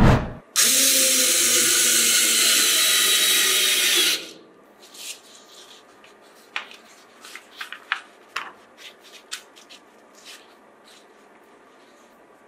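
A short thump, then an electric drill runs steadily for about three and a half seconds and stops, drilling into wood with a screw chucked in place of a bit. After it come scattered light ticks and rustles of paper as the sawdust is handled.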